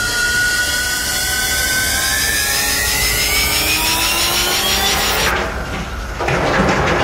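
Rising whining whoosh sound effect for a flying ghost: several pitches climb together over a hiss for about five seconds, then the high part cuts off abruptly and a duller noise follows near the end.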